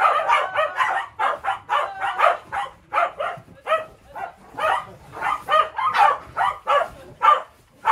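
Welsh corgis barking rapidly and repeatedly, about three barks a second, with higher yips among them.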